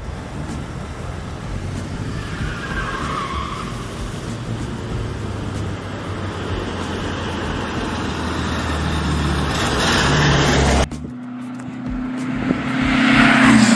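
A car running, with a steady rush of engine and road noise. It cuts off abruptly about eleven seconds in, and a different steady hum then swells near the end.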